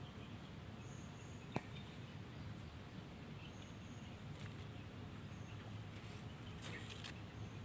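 A steady high-pitched insect trill, with a few faint short bird chirps scattered through it and one sharp click about one and a half seconds in.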